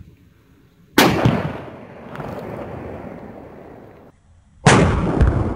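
Firecracker taped to a hanging plastic water bottle going off: a sharp bang about a second in that blows the bottle apart, its sound trailing off over about three seconds. A second loud bang follows near the end.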